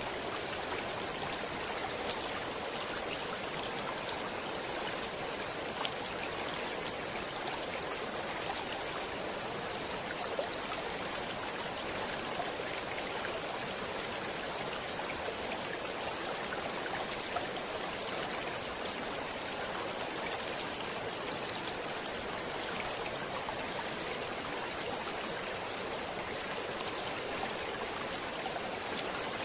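Stream water running steadily over rocks, an even rushing with small splashes and droplet ticks scattered through it.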